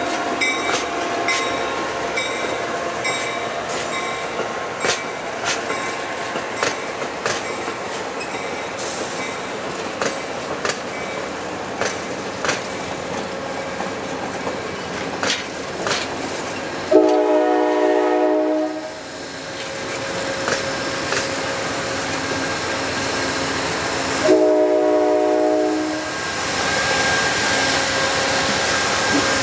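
Amtrak passenger cars rolling past with wheels clicking over rail joints. A locomotive air horn sounds two chord blasts, the first starting suddenly partway through and fading over about two seconds, the second shorter a few seconds later. Near the end a heritage-painted Amtrak diesel locomotive passes close by.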